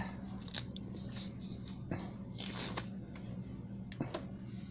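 Foam packing insert being pulled out of a soft TPU phone case: a series of short scraping, crinkling rustles, with a slightly longer one about halfway through.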